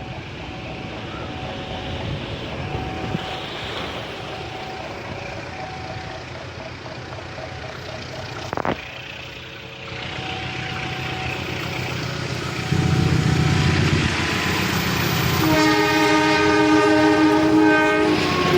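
A diesel locomotive approaching, its engine rumble growing louder in the second half, then its air horn blowing one long multi-note chord for about three seconds near the end. Earlier, a repeating electronic tone sounds, with a sharp click about halfway through.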